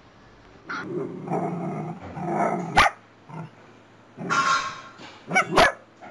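Small dogs barking in several separate short bursts.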